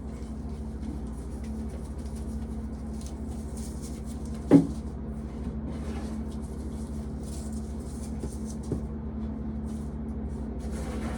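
Steady hum of an electric fan, with intermittent dry rustling of corn being shelled by hand. There is one sharp knock about four and a half seconds in, and a lighter click later.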